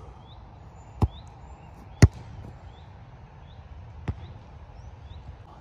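A football being played on grass: a lighter thud about a second in, a hard strike about two seconds in, and a fainter thud near four seconds. Through it a bird gives short rising chirps over and over.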